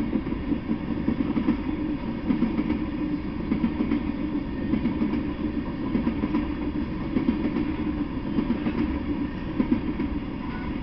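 Freight train of tank cars rolling past: a steady rumble of steel wheels on the rails, broken by frequent short clacks as the wheels run over the rail joints.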